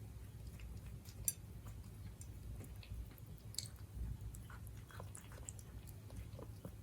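Siberian cat chewing and biting its food, heard as irregular small clicks with one sharp click a little over a second in, over a low steady hum.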